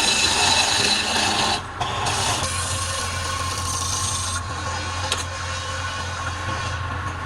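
Wood lathe running while the spinning workpiece is worked, with a loud rasping of tool or abrasive on wood for about the first second and a half. After that it is mostly the lathe's steady motor hum with lighter rubbing.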